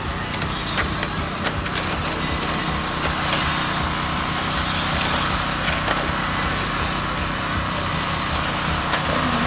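Several 1/10-scale electric RC touring cars racing, their motors making high-pitched whines that rise and fall in pitch as the cars accelerate, brake and pass, overlapping one another.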